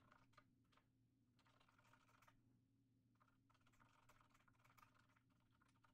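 Near silence: faint, scattered clicks of typing on a computer keyboard over a low steady hum.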